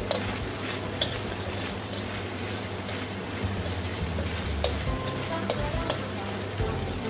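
Stir-fry sizzling in a frying pan as it is stirred, with a spatula clicking against the pan several times.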